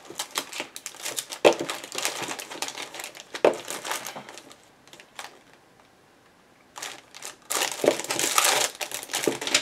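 Packs of stickers being rifled through: crinkling and rustling with small clicks and taps, a lull about halfway, then denser crinkling near the end.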